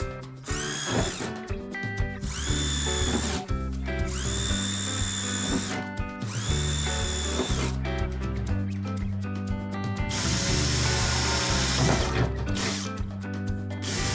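Power drill running in a series of short bursts of about a second each, the whine rising as each one spins up, then a longer steady run near the end. Background music plays underneath.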